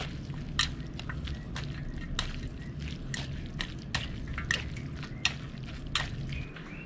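Saucy instant noodles with purslane and egg being mixed on a plate: wet squelching of the noodles and irregular sharp clicks of a utensil against the dish, over a steady low hum.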